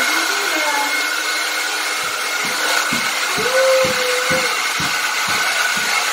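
Handheld hair dryer running, a steady rushing blow with a thin whine, starting abruptly right at the beginning. From about two seconds in, regular low thumps come about twice a second under it.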